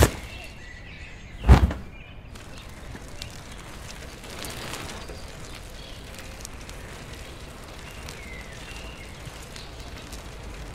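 Steady outdoor background noise with a few faint bird chirps, broken once by a single sharp, loud thump about a second and a half in.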